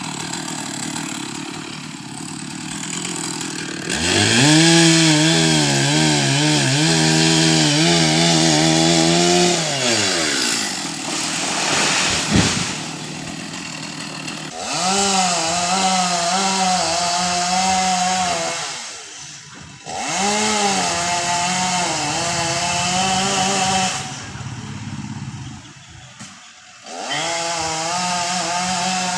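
Chainsaw revving up to full throttle in four spells of a few seconds each, its pitch wavering while under load as it cuts into a coconut palm, and dropping back to a low idle between spells.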